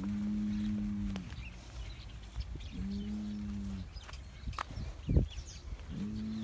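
Cattle mooing: three steady, level-pitched moos of about a second each, spaced a few seconds apart, with a couple of short knocks between the second and third.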